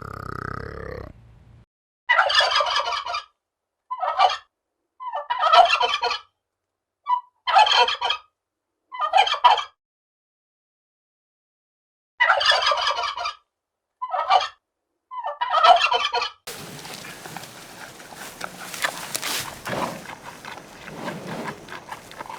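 Turkey gobbling: about eight short rattling gobbles, each up to about a second long, with pauses between them. They give way to low, steady background noise for the last several seconds.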